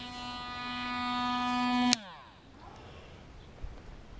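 Small battery-powered bilge pump motor running dry with a steady buzzing whine that grows louder, then switched off with a click about two seconds in, its pitch falling as it winds down.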